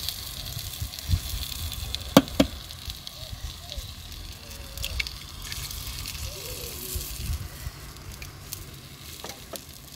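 Eggs and cheese frying in a small nonstick pan: a steady sizzle, with two sharp taps about two seconds in as an egg is cracked against the pan, and a few fainter clicks later.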